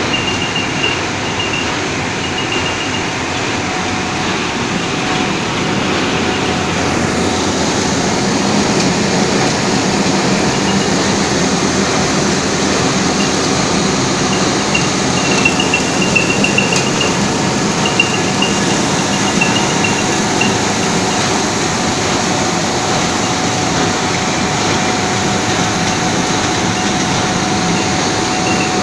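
High-speed twist gusset machine for plastic film tubing running steadily, its rollers and winder feeding the film tube through with a continuous mechanical rumble and a faint steady whine. Strings of high, quick squeaks come and go near the start and again around the middle.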